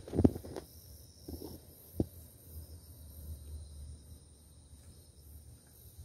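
Night insects, crickets, chirping steadily in a high, even drone. A few dull low thumps break in, the loudest just at the start and a sharp one about two seconds in.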